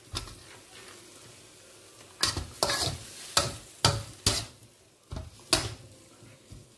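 A metal ladle scraping and knocking against a metal wok as fried-rice ingredients are stir-fried, over a faint sizzle of frying. It is quieter for the first two seconds, then a run of irregular scrapes and knocks follows.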